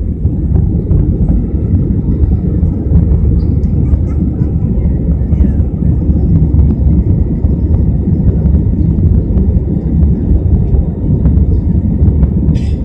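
Steady low rumble of an Airbus A320-family airliner's jet engines and rushing air, heard inside the passenger cabin during the climb after takeoff. A brief high-pitched tick sounds near the end.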